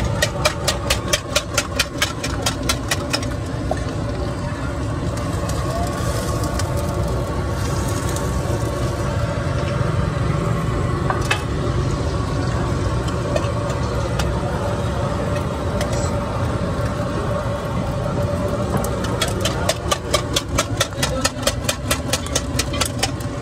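A fork beating eggs against the inside of a steel mug: fast metallic clicking, about four strokes a second, for the first few seconds and again near the end. A steady low rumble of engines runs underneath.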